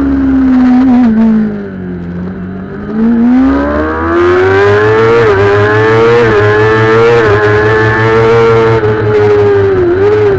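Kawasaki ZX-6R's inline-four engine heard on board at race pace. The revs fall as the bike slows through a bend, then climb hard out of it, with three quick upshifts about a second apart, and the engine holds high revs to the end.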